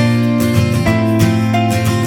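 Background instrumental music led by strummed acoustic guitar, with a steady beat.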